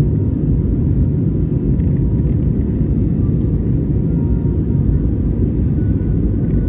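Steady low rumble of an Airbus A320neo's CFM LEAP-1A turbofan engines and rushing air, heard from inside the passenger cabin while the airliner climbs after takeoff.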